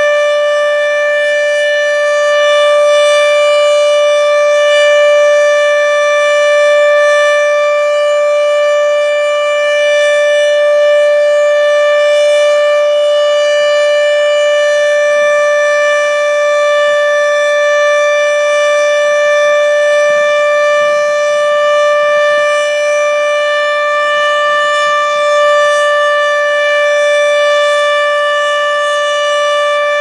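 American Signal OM-120 outdoor warning siren sounding a loud, steady tone held at one pitch, with no rise or fall.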